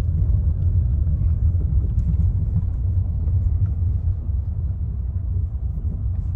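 Steady low rumble of a moving Toyota car, heard from inside the cabin.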